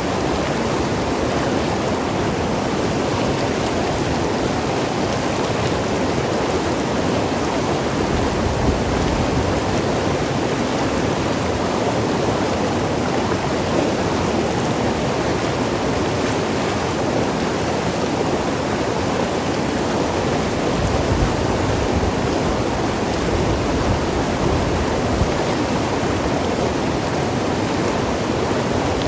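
Mountain river rushing and gurgling over rocks, a steady full water noise with no breaks.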